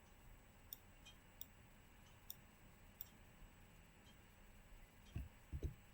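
Faint computer mouse clicks, scattered about every half second to a second, with two low thumps near the end.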